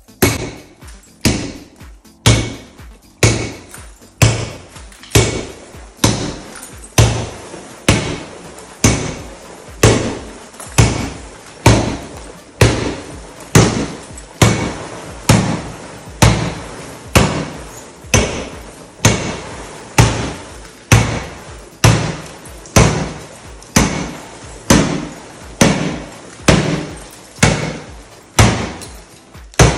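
Baseball bat striking a glass door panel covered with two-part security film, about one hard hit a second, each with a short crunch and tinkle of crazed glass. The shattered glass stays held in the frame by the film.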